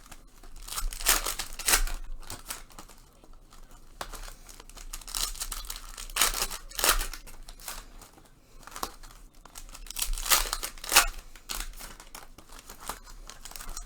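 Trading card pack wrappers being torn open and crinkled by hand, in irregular rustling bursts with louder rips about a second in, around six to seven seconds in and around ten to eleven seconds in.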